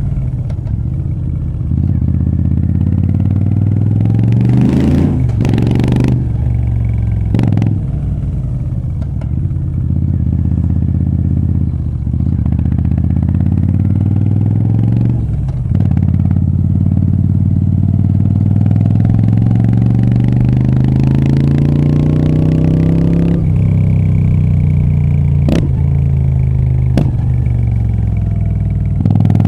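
Moto Guzzi V7 III Rough's air-cooled V-twin through short Mistral aftermarket exhausts, under way. The engine climbs in revs and drops back at each gear change several times, with one long climb in the second half before easing off.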